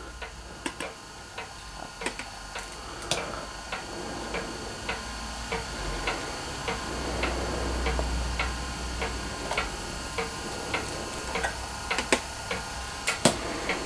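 Light clicks, roughly two a second, with a few sharper taps near the end: a stylus and fingertip tapping on the screen of an IBM ThinkPad 730TE pen tablet, over a low steady hum.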